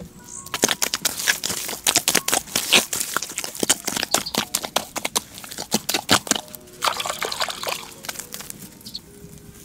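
Bare feet treading and kneading damp earth into building mud, a quick, uneven run of wet squelches and slaps that dies away shortly before the end.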